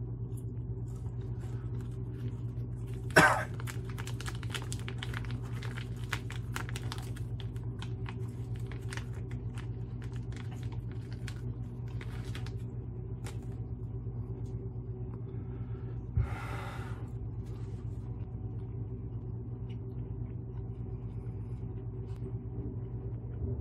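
Home furnace blower running with a steady low hum, while a plastic wrapper crinkles in the first half, with one sharp crackle about three seconds in. A short breath is heard near the middle.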